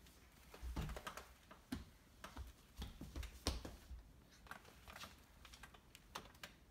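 Faint, irregular light taps and clicks on a hardwood floor, some with a soft thud, from a crawling baby's hands and a boxer dog's paws and claws moving beside it.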